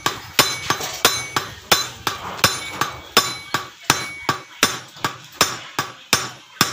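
A small hammer striking the steel clutch housing and gear of a Suzuki X4 motorcycle, about three quick blows a second, each with a short metallic ring. The blows are peening the housing down onto the newly fitted clutch damper, which is not yet fully seated, to take the play out of the housing.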